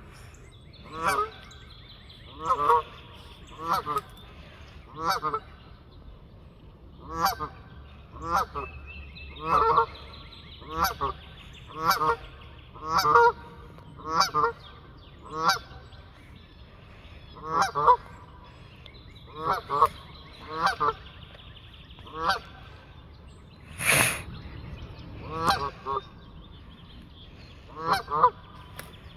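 A flock of geese honking, short honks coming singly and in quick pairs about once a second, with one brief harsher noise about four-fifths of the way through.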